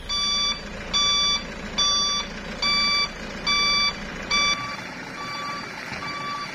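A truck's reversing alarm beeping at an even pace, a little more than once a second, over a low rumble. About two-thirds of the way through, the beeps become fainter and the rumble drops away.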